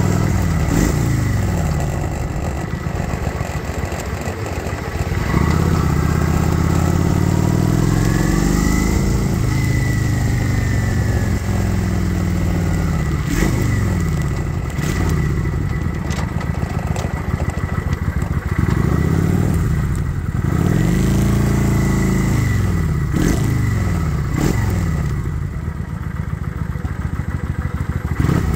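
Kawasaki Vulcan 900 Classic's V-twin engine running as the motorcycle is ridden, its pitch rising and falling again and again with the throttle and gear changes.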